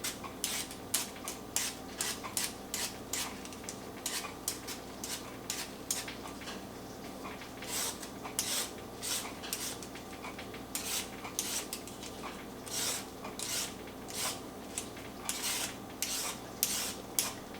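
Vegetable peeler scraping the skin off a raw parsnip in quick, light strokes, about one or two short rasping scrapes a second.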